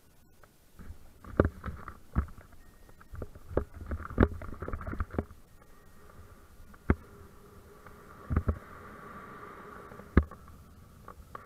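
Sharp thumps and knocks at irregular intervals as the pilot's body-mounted action camera jolts during a paraglider's running launch. From about eight seconds in, a steady rush of wind over the microphone builds as the pilot gets airborne.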